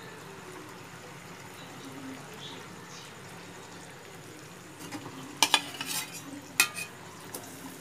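Mustard fish gravy sizzling gently in a kadai as fried fish are laid into it, then a few sharp metal clinks, with one more a moment later, as a steel lid and spatula knock against the pan about two-thirds of the way through.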